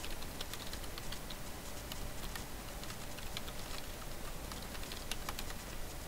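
Computer keyboard being typed on: faint, quick, irregular key clicks.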